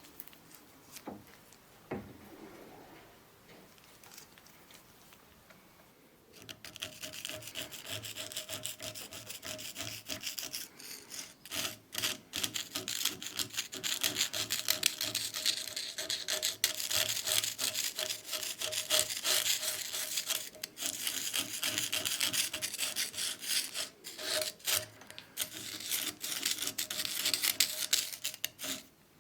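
A tool rubbing and scraping on wood in quick, continuous strokes, starting about six seconds in after a few faint knocks, with a steady hum underneath.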